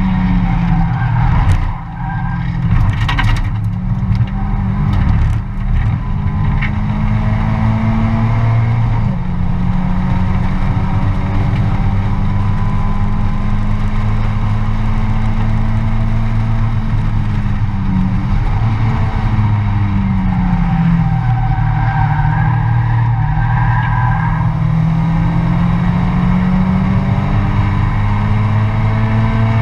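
Mazda MX-5 race car's four-cylinder engine at racing revs, heard from inside the cabin, its pitch holding for long stretches, falling about nine seconds in and dipping and climbing again around twenty seconds in. A few sharp knocks come in the first few seconds.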